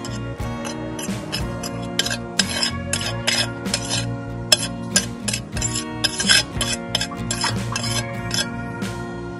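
Metal knife blade scraping in quick, irregular strokes across a hard white tile board, clearing off dirt, over steady background music.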